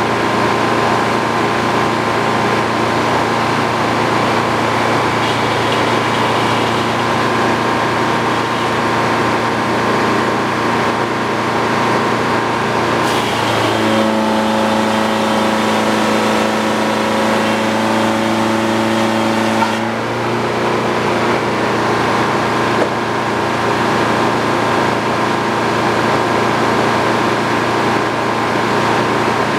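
Sawmill running steadily, its engine and blade making a constant mechanical hum. From about 13 to 20 seconds in, the tone shifts to a clearer set of pitches, then returns.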